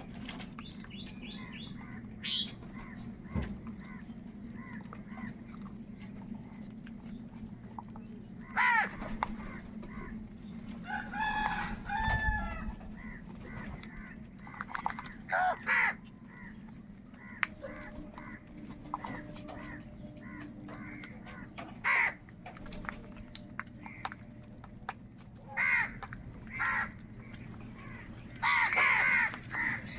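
A flock of crows cawing: short, harsh calls come irregularly throughout, with a longer, wavering call about eleven seconds in and a burst of overlapping calls near the end. A steady low hum runs underneath.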